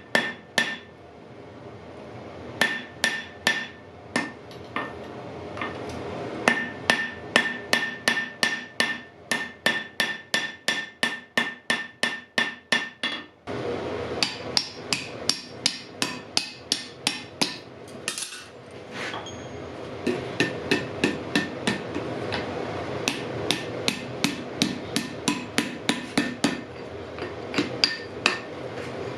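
Hand hammer striking hot iron on an anvil in quick runs of about three blows a second, with short pauses between runs and a bright ring on many blows in the first half. About halfway through a steady rushing noise starts up under the hammering and continues.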